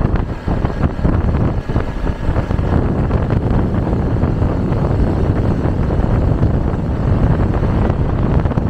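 Steady wind buffeting the microphone with a low road and engine rumble, as from riding a motorcycle at speed.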